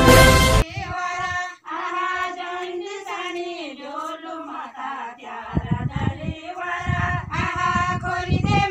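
A channel intro jingle cuts off about half a second in; then a group of Garhwali women sing a Holi folk song together, with irregular low thumps joining in from about halfway.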